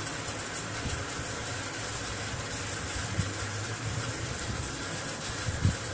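Steady background room noise: a low rumble under a hiss, with a brief low thump about three seconds in and a louder one near the end.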